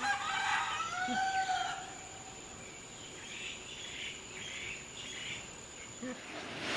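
A rooster crows once, a pitched call of about two seconds that rises and falls, followed by fainter bird chirps, over a steady high insect drone.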